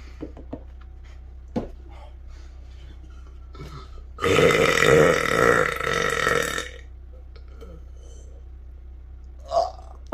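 A man's long, loud burp lasting about two and a half seconds, starting about four seconds in, preceded by a few faint clicks.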